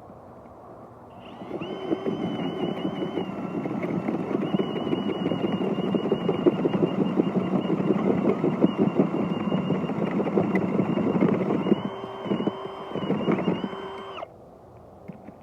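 Power drill turning a garden auger bit into soil: a steady motor whine over churning, grinding noise. It gives a few short stop-start bursts near the end, then cuts off.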